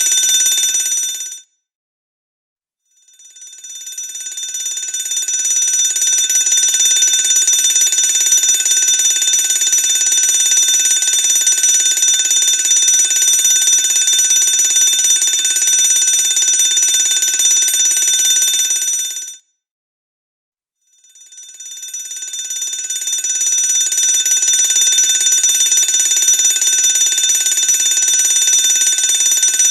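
Electric fire alarm bell ringing continuously at a high pitch. It cuts off twice, about a second and a half in and again near twenty seconds in. Each time it comes back after a second or so, swelling up over a couple of seconds.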